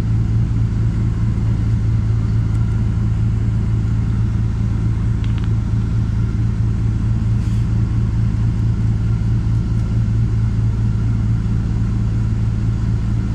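LiAZ 5292.67 city bus with a YaMZ-53624 compressed-natural-gas engine idling, a steady low drone heard from inside the passenger cabin.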